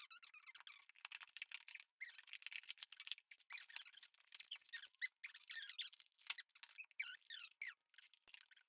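Faint crinkling and rustling of toy packaging being handled: a plastic bag and cardboard box, made up of many small crackles and clicks with some short squeaks, and scissors cutting into the cardboard near the end.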